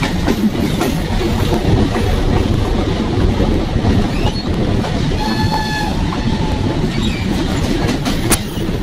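Steam locomotive running at speed, heard close to its running gear: a steady hiss of escaping steam over the clatter of wheels on the rails. A brief faint high tone comes about five seconds in, and a sharp click near the end.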